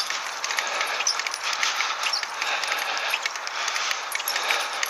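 Bicycle with a dog springer attachment rolling over a wet, potholed tarmac lane: a steady hiss of tyres on the wet road, with many small metallic clinks and rattles from the bike and attachment shaking over the rough surface.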